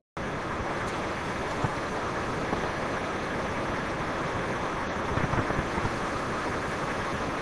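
Steady rushing hum of many rack servers' cooling fans filling a data-center room. A few light knocks and clicks sound near the middle as a blade server is handled and seated into its chassis.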